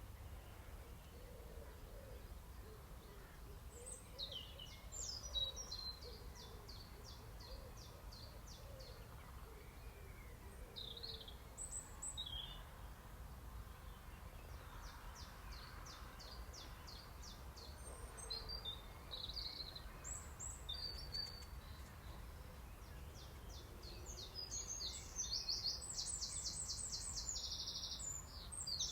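Songbirds singing: scattered high chirps and fast trills of rapidly repeated notes, with the densest, loudest trilling near the end, over a low steady background rumble.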